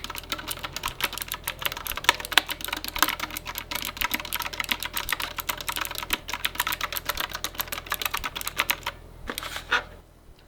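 Razeak RK-X68 mechanical keyboard with round typewriter-style keycaps being typed on fast, a continuous rapid clatter of keystrokes. The clatter stops about nine seconds in, after a couple of last key presses.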